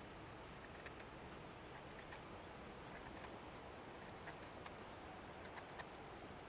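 Small wood fire crackling: irregular sharp pops and ticks, several a second, over a faint steady hiss.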